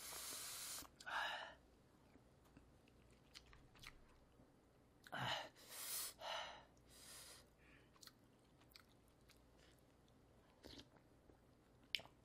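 Close-miked eating sounds from a person eating rice and beef brisket stew: soft chewing with a few short breathy bursts, and scattered small clicks of a plastic spoon against plastic takeout containers.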